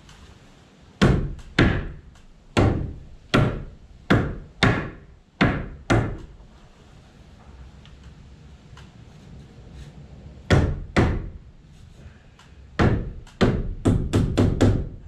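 Hammer blows on the wooden top plate of a stud wall frame, knocking it loose to remove it. About eight sharp strikes in the first six seconds, a pause, two more, then a faster run of blows near the end.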